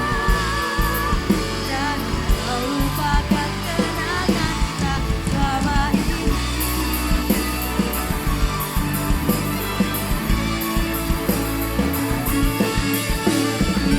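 Live band music with guitar, a steady low end and frequent drum strikes, plus a wavering melodic line near the start.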